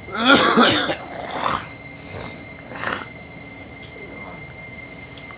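A person with a cold coughing: a long harsh coughing fit in the first second, then two shorter coughs about a second and a half and three seconds in.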